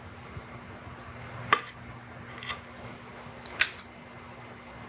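Stainless steel squeeze-handle cookie scoop clicking as it releases dough onto a baking sheet: three sharp metallic clicks about a second apart, the middle one fainter.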